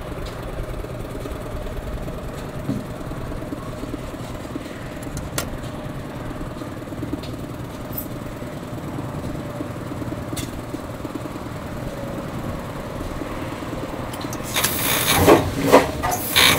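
A steady low rumble with a few sharp clicks, then, about fourteen seconds in, the big three-cylinder Fairbanks Morse engine starts turning over on compressed air, with loud rhythmic hissing puffs about two to three a second that quicken.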